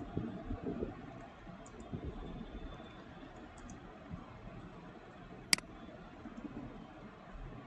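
Faint computer keyboard typing, a few soft key taps and one sharp click about five and a half seconds in.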